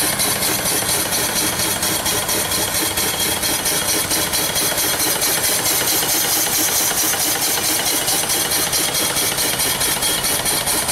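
Small homemade single-cylinder steam engine on a vertical boiler running steadily, with a rapid, even exhaust beat over a steady hiss of steam.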